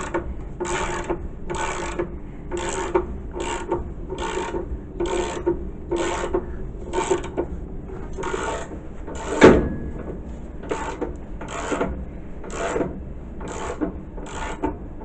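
Ratchet wrench turning the motor-base tensioner bolt in repeated rasping strokes, about one a second, backing the belt tension off so the electric motor slides toward the fan pulley. One louder knock about halfway through.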